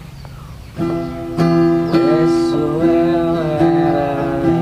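Acoustic guitar being strummed, getting louder with a full ringing chord just under a second in, and a man's voice singing a wavering melody over it from about two seconds in.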